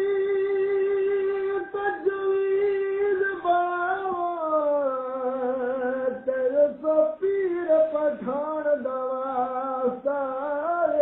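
A man singing solo without accompaniment. He holds a long high note for about the first three seconds, then slides down into wavering, ornamented phrases.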